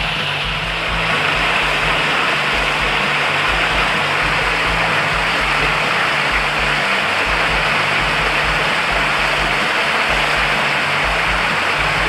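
Mountain stream water rushing over rocks close to the microphone, a steady rush that swells about a second in. Background music with a repeating bass line runs underneath.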